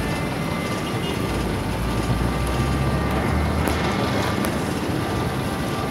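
Motorcycle on the move: steady engine running under a rush of wind and road noise.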